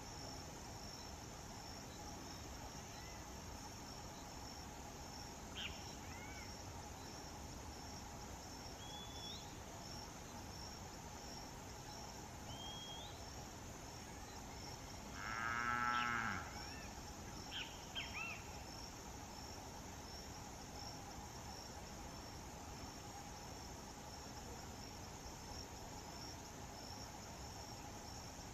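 Steady insect chirping with a few short bird chirps, and a single cow's moo of about a second near the middle, the loudest sound.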